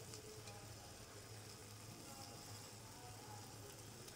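Near silence: faint steady hiss with a low hum, room tone.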